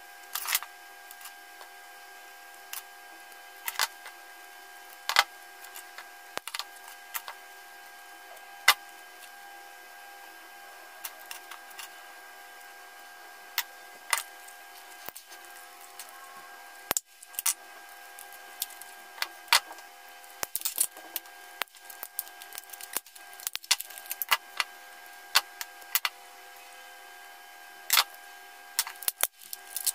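Hands handling cylindrical 18650 lithium-ion cells and plastic battery-pack parts on a wooden table: scattered sharp clicks and taps at irregular times, over a faint steady hum.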